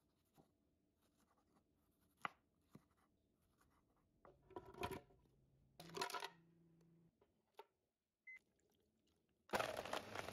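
Quiet kitchen handling: a knife cutting strawberries on a wooden board with a sharp tap about two seconds in, then clatters and thuds as strawberries and yogurt go into a blender jar. Near the end a blender starts suddenly and runs, much louder, blending strawberries, yogurt and milk.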